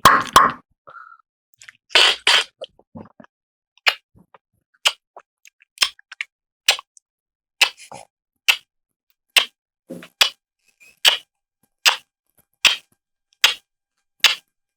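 Sharp mouth clicks made by a mimicry artist: a few irregular clicks at first, then single clicks at an even beat of a little under one a second, like a clock ticking.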